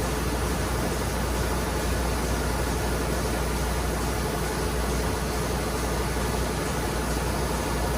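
Steady engine-room machinery noise: running engines and ventilation giving a constant low hum under an even hiss.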